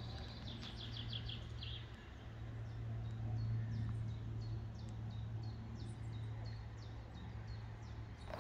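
Small birds singing: a quick run of high chirps that falls away near the end, in the first two seconds, then scattered high calls, over a steady low hum.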